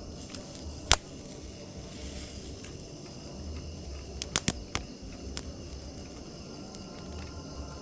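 A sharp click about a second in, then a quick run of several clicks and pops between about four and five and a half seconds, over a steady low hum and faint high insect-like chirring.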